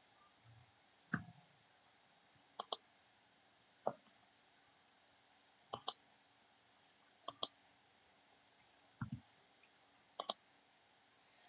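Computer mouse clicking: seven sparse clicks, four of them quick double clicks, over a quiet background.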